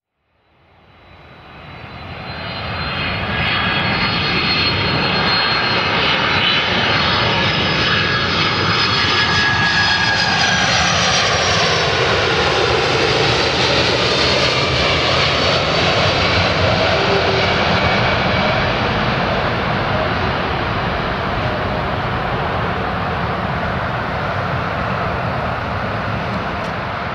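Boeing 767 jet airliner on final approach passing low overhead. The engine whine and rumble swell in over the first few seconds, the whine falls in pitch as the aircraft passes about halfway through, then a broad rumble lingers and slowly fades.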